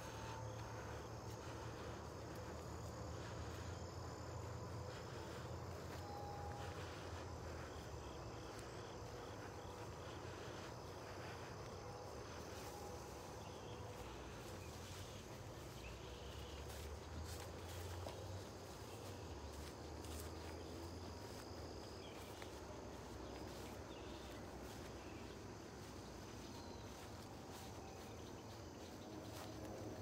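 Faint, steady chorus of crickets and other insects trilling in the prairie grass, over a low rumble.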